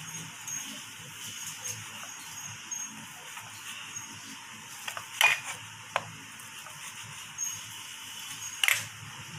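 Chef's knife chopping bacon on a plastic cutting board: soft taps of the blade, with a few sharper knocks on the board past the middle and the loudest one near the end.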